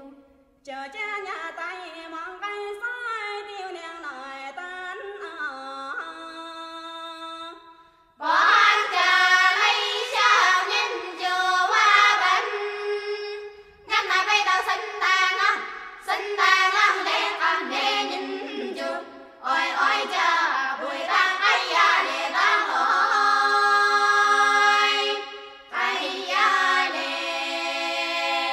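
Dong Grand Song (Dong Ka Lau), an a cappella folk chorus, sung by several voices without instruments. A softer passage opens, then about eight seconds in the chorus comes in much louder, singing in phrases broken by short pauses.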